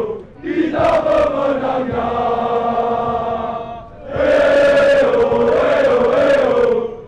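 Large crowd of football supporters singing a chant together in unison, with short breaks between phrases and one long held note in the middle.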